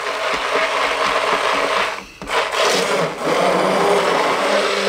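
A 1980s electric stick blender (immersion blender) running in a pot of cooked potatoes and stock, puréeing them into soup. It stops briefly about two seconds in, then starts again.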